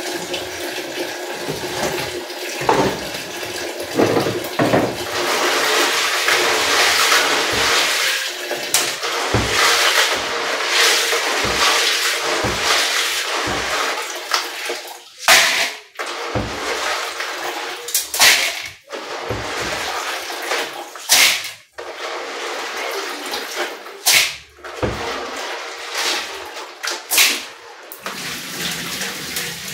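Water running from a kitchen tap into a plastic basin while grains are washed by hand in it. In the second half, louder splashes come about every three seconds as wet handfuls of grain are scooped out.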